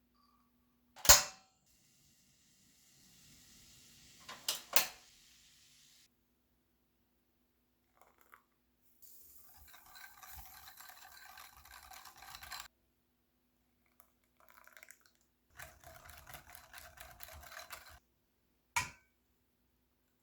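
Kitchen work sounds: a few sharp knocks of utensils or dishes, the loudest about a second in, and two longer stretches of rough scraping noise in the second half.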